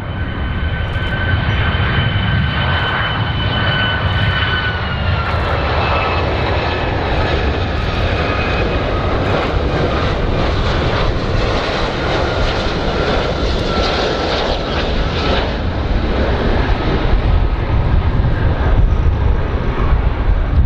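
Boeing 757 jet airliner on final approach: steady engine rumble with a high whine on top that steps down a little in pitch about five seconds in.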